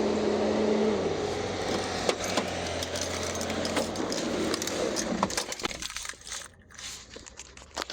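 Keys jangling and small clicks as a flip-key remote is handled, over steady outdoor background noise. A steady hum slides down in pitch about a second in, and the background drops away near the end, leaving only a few clicks.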